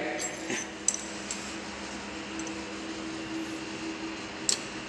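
A few light metallic clicks and clinks of a 15 mm spanner working the locking bolts on a lathe's compound slide, with one more click near the end, over a steady low hum.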